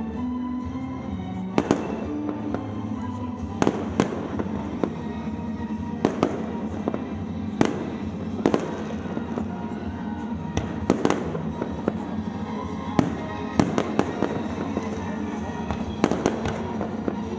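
Fireworks bursting in sharp bangs every second or two, some in quick pairs and clusters, over steady music.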